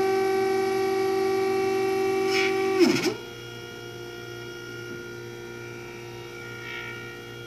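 Stepper motors of a homemade CNC router with a TinyG controller, driving the gantry with a steady pitched whine that sweeps sharply down in pitch and stops about three seconds in as the axes decelerate back to their zero position. A much fainter steady hum continues after that.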